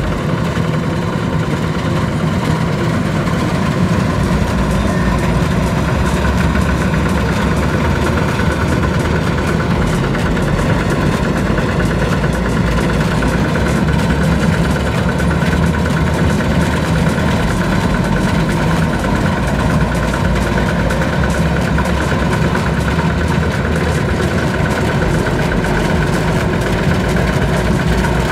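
Diesel engines running steadily: a Kubota DC-93 combine harvester working at close range, mixed with a two-wheel walking tractor's engine. The combined drone holds even throughout, with no revving or stopping.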